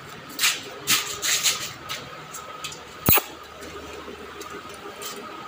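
A cow moving about in a concrete-floored shed: short rustling, scraping noises in the first two seconds and one sharp knock about three seconds in, over a faint steady high hum.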